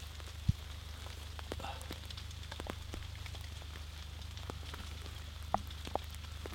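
A large carp being handled on a plastic unhooking mat: faint scattered wet crackles and clicks, with a few sharper clicks about half a second in and twice near the end, over a steady low rumble.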